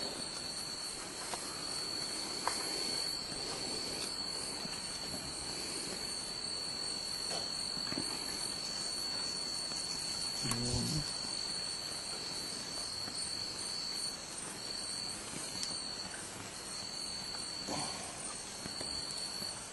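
Insect trilling: one steady high-pitched tone that breaks into short, separate pulses in the last few seconds. A brief low thump comes about halfway through.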